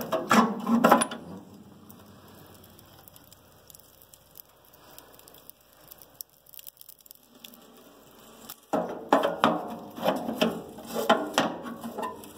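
Wood stove door latch and door clanking as the door is opened, then a few seconds of faint crackling from the burning logs. From about nine seconds in, a dense run of metal and wood knocks and clatters at the stove.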